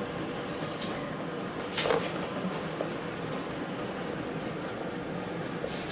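Steady kitchen background hum, with one light knock about two seconds in and a couple of faint clicks.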